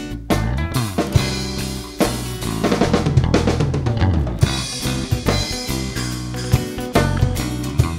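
Live rock band playing an instrumental passage: drum kit with kick and snare hits, electric bass, and acoustic and electric guitars, with no singing.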